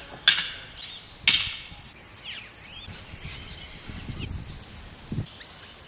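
Two sharp knocks about a second apart, from work putting up dog-wire mesh on steel star pickets. A steady high-pitched insect buzz then sets in, under faint knocks and rustles as the wire is handled.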